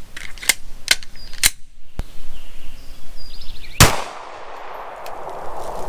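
9mm Glock 19 pistol fired: a few sharp shots in the first two seconds, then one loud shot about four seconds in that echoes afterwards.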